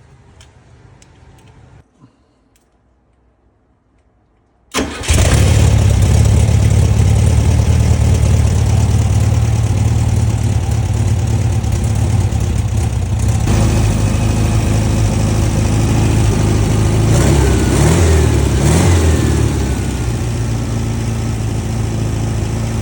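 VW Beetle's air-cooled flat-four engine, just after a full carburettor rebuild, starts about five seconds in. It catches at once and runs steadily and loudly, with the engine note shifting briefly twice near the end.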